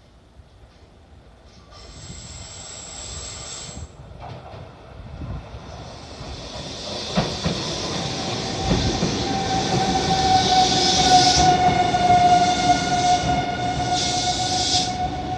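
Nankai electric train coming into the station, growing steadily louder, with a couple of heavy knocks from the wheels on rail joints. From about halfway, a steady high squeal or whine rings over the rumble of the train.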